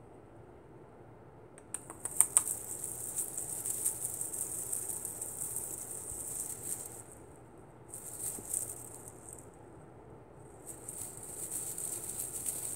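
Peacock Sparkler cat wand toy shaken and waved, giving a high, hissy rattling rustle in three bursts: a long one starting about two seconds in with a few sharp clicks at its start, a short one around eight seconds, and another near the end.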